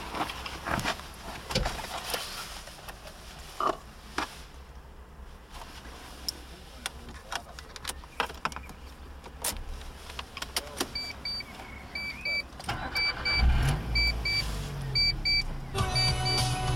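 Keys and cabin controls clicking, then an electronic warning chime beeping in pairs. About thirteen seconds in, the 2007 Mitsubishi Colt 1.3's four-cylinder petrol engine is cranked, starts and settles into a steady idle. Music comes in near the end.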